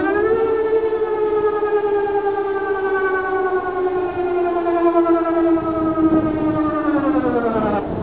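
Whelen WPS-2705 electronic warning siren sounding the Danish "warning" signal in a test. The tone finishes rising just after the start, holds while sinking slightly for about seven seconds, then falls away near the end.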